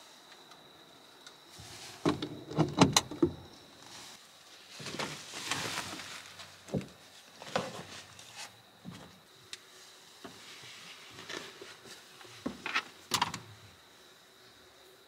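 Knocks, clicks and rustling of objects being handled and set down, loudest in a quick cluster about two seconds in and again near the end, over a faint steady high whine.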